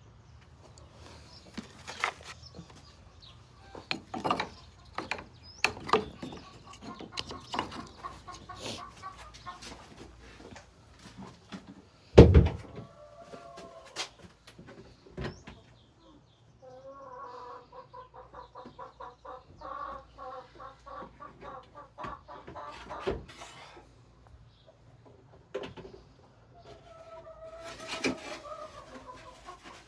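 Chickens clucking, with a louder single call about twelve seconds in and a long run of rapid, repeated clucks in the middle. Scattered knocks run through it.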